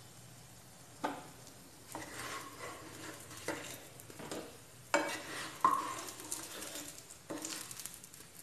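Aloo tikki patties sizzling in shallow oil in a nonstick frying pan while a wooden spatula scrapes and knocks against the pan, turning them over. There are several sharp knocks, the loudest about five seconds in and again half a second later.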